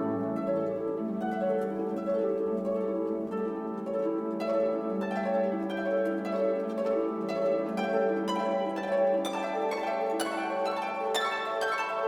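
Background music: a quick, steady run of plucked string notes over a held low note.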